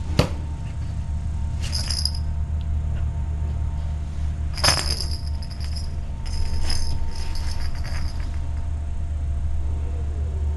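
A small bell in a cat toy jingling in short bursts as the toy is batted and carried about, four times in all, with a sharp knock at the start and another about five seconds in. A steady low hum lies underneath.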